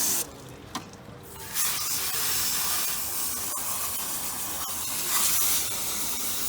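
Water spraying from a hose nozzle to rinse out a vintage window air conditioner, a steady hiss that cuts off for about a second just after the start and then resumes.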